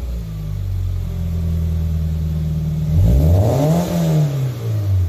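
Flat-four boxer engine of an FR-S/BRZ/GT86 running through an Invidia N2 cat-back exhaust. It idles steadily, then is revved once about three seconds in, the pitch rising and falling back to idle over about two seconds.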